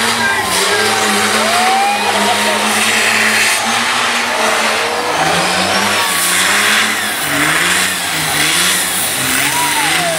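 The twin-turbo diesel engine of a 1949 Ford F1 race truck doing a burnout with its rear tyres spinning in clouds of smoke. The engine holds high revs at first, then revs up and down repeatedly from about halfway through, over a continuous hiss and squeal from the tyres.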